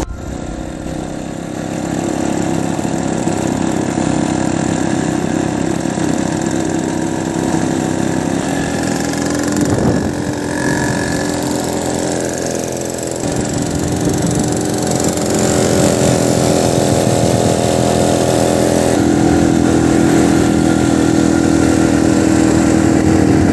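Vintage motorcycle engine running steadily. Its note changes about halfway through and it gets louder toward the end.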